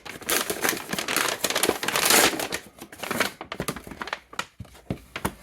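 Plastic packaging crinkling as it is handled and torn open, dense for about three seconds and then thinning to a few clicks and taps.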